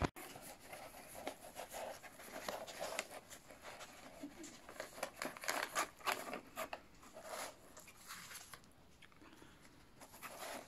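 Dog rummaging with its nose in an open cardboard box of toys and packaged treats: irregular rustling and small knocks of cardboard, wrapping paper and plastic packaging.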